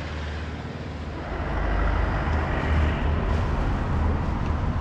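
Old farm tractor going by on the road with a loaded low-loader trailer, its diesel engine rumbling; the noise grows louder about a second in as it passes.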